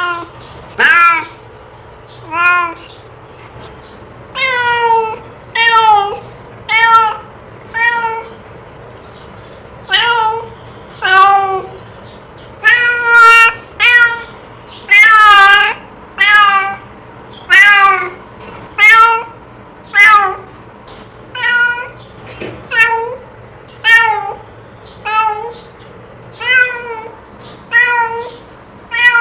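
A cat meowing over and over, one call about every second, each meow short with its pitch bending up and down.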